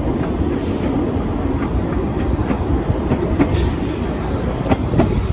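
Passenger train carriage running along the line: a steady rumble of wheels on rail with sharp clicks as the wheels pass over rail joints, every second or so.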